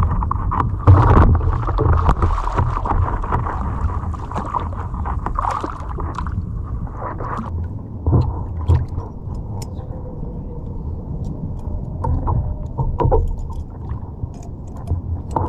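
Water splashing and sloshing against a kayak hull at the waterline as a hooked reef shark thrashes alongside, with a loud splash about a second in and scattered knocks and smaller splashes after.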